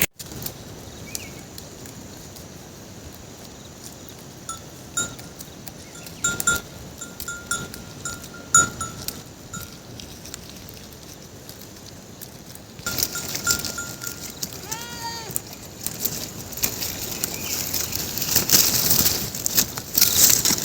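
Free-grazing goats with a bell clanking and ringing on and off, and goats bleating a few times in the second half.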